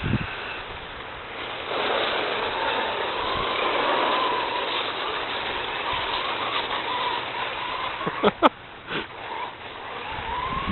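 Radio-controlled car driving on ice: a wavering motor whine over a steady rushing noise, with a few brief sharp sounds about eight seconds in.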